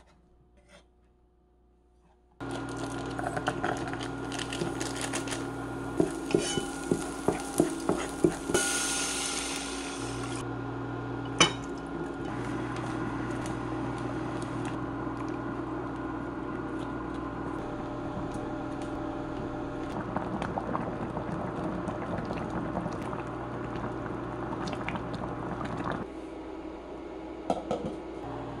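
Tteokbokki cooking in a pot on an electric cooktop: rice cakes, seasoning powder and liquid sauce go into the heating water over a steady hum. There is a run of clatter, a short pouring hiss and one sharp click.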